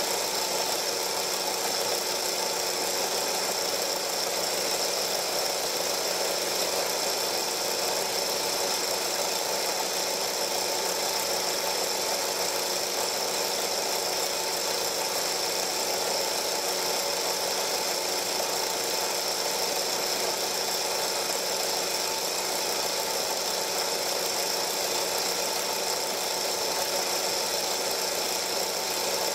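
Steady machine hum over hiss, unchanging throughout, with no separate events.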